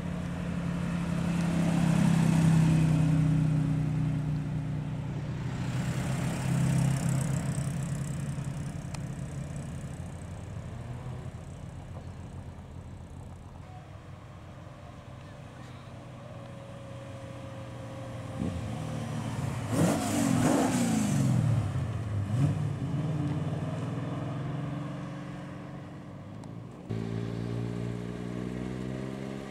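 Classic British cars driving past one after another, each engine note swelling as the car nears and fading as it goes. About twenty seconds in, one engine revs, its pitch rising and falling, and near the end another car's steady engine note starts abruptly.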